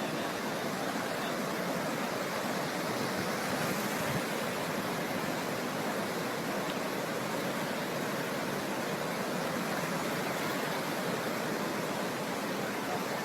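Fast-flowing floodwater rushing steadily.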